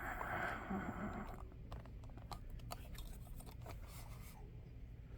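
Faint handling noise: a scraping rustle in the first second or so, then light scattered clicks and taps.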